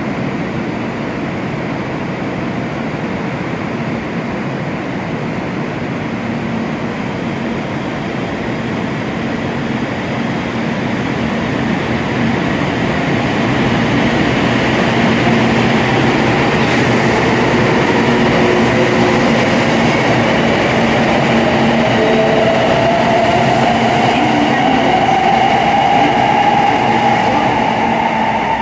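JR Kyushu 800 Series Shinkansen pulling out of the station and accelerating away: a steady rumble that grows louder from about halfway through, with an electric motor whine rising steadily in pitch as the train gathers speed.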